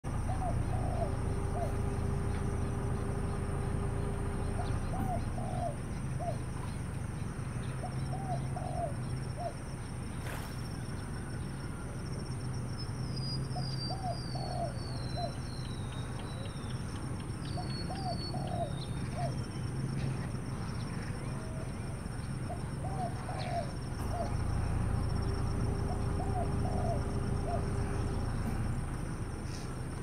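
Doves cooing in short phrases of three or four notes, repeated every few seconds. In the middle a smaller bird gives quick runs of descending high chirps, over a steady low hum.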